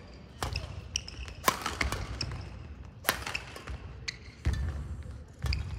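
Badminton play on a gym floor: sharp racket strikes on a shuttlecock, the loudest about a second and a half and three seconds in, with short sneaker squeaks and thudding footfalls.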